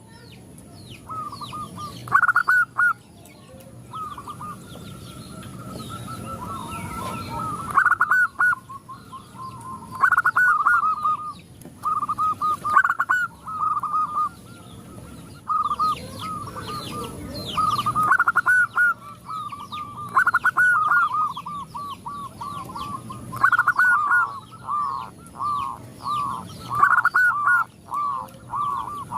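Several zebra doves (perkutut) cooing: rippling bursts of short, fast notes, one bird answering another every couple of seconds, running into a steady string of coos near the end. Faint high chirps of smaller birds sit behind them.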